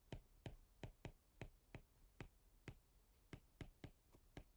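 Faint, sharp clicks of a stylus tip tapping on a tablet screen during handwriting, irregular, about three a second.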